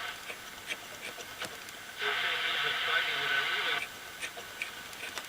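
Philips AM radio being tuned across the band through its old paper-cone speaker: hiss and crackle between stations, then a station's muffled, narrow-band audio coming in for about two seconds mid-way before tuning away again.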